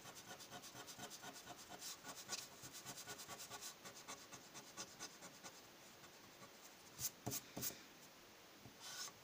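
Rubber eraser, its blue side, rubbed quickly back and forth over a pencil line on drawing-album paper: faint rubbing strokes, about five a second, that die away after about five seconds, followed by a few short, sharper scrapes about seven seconds in.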